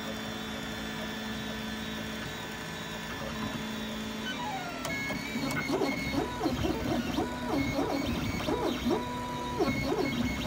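MakerBot 3D printer printing a part. Its stepper motors hum in steady tones at first, then from about halfway through make a run of short rising and falling whines as the print head moves back and forth.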